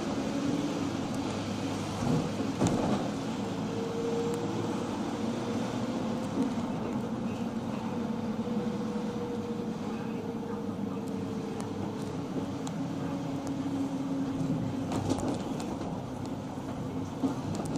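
Mercedes-Benz Sprinter minibus on the move, heard from inside: a steady rumble of engine and road noise with a faint engine note that drifts slowly in pitch. A few knocks and rattles come through, the loudest about two and a half seconds in.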